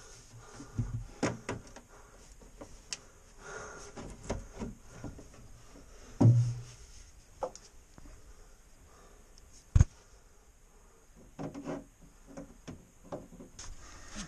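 Irregular knocks, bumps and rustling from someone working by hand and moving about in a cramped crawl space. There is a heavy thump about six seconds in and a sharp knock near ten seconds.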